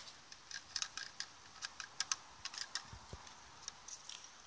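Irregular light clicks and taps of hard plastic: a child's toy plastic tool knocking against a plastic hose fitting as she handles them.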